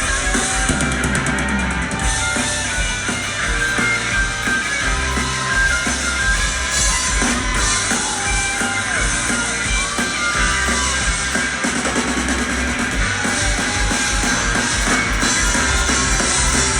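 Rock music with a drum kit and guitar playing continuously.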